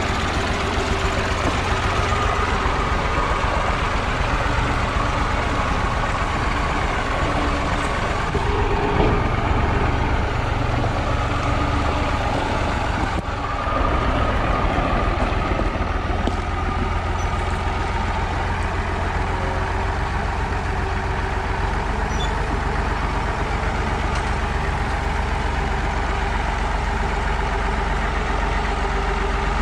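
IMT 539 tractor's three-cylinder diesel engine running steadily as the tractor drives along a gravel track towing an empty trailer.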